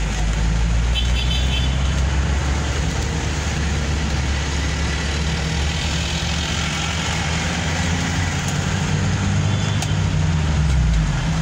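Steady low engine rumble and road noise of a car driving in dense city traffic, heard from inside the car. A short high-pitched beeping comes about a second in.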